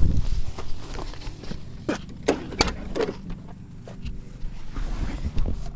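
A handful of sharp clicks and knocks over a low rumble, about four in quick succession near the middle: handling sounds in and around a pickup truck as the key is fetched and worked.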